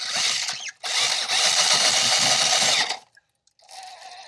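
Axial SCX6 RC crawler's electric motor and geared drivetrain whining under throttle. A short burst comes first, then a brief break, then about two seconds of hard throttle that cuts off sharply about three seconds in, followed by a fainter stretch of running.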